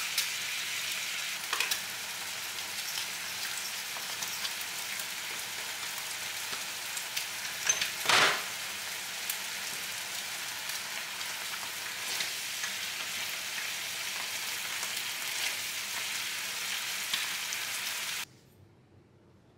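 Sliced meat sizzling in a nonstick frying pan over a gas flame, stirred with wooden chopsticks that click against the pan now and then; one louder flare of sizzle about eight seconds in. The sizzle cuts off suddenly a second or so before the end, leaving faint room tone.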